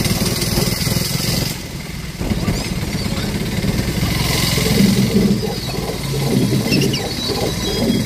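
Auto-rickshaw engine running with a rapid low pulse as the auto drives along, easing off briefly about two seconds in.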